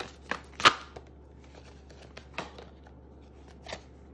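Oracle cards being shuffled and handled: a few short, sharp card snaps and flicks, the loudest about half a second in, with quieter ones around two and a half seconds and near the end.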